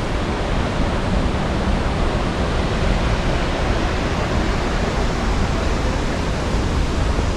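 Steady rushing of a large waterfall, an even, unbroken noise.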